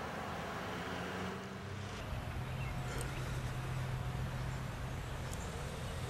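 Distant Federal Signal 2001-SRN outdoor warning siren sounding a steady alert tone, faint under wind and outdoor noise, with a steady low tone that drops in pitch about two seconds in.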